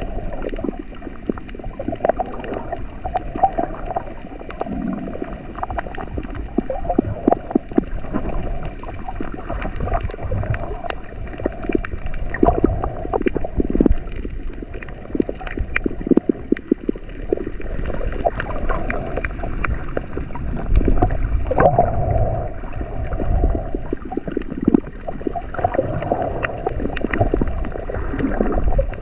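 Muffled underwater water noise picked up by a submerged action camera: continuous sloshing and gurgling, with scattered clicks and pops throughout.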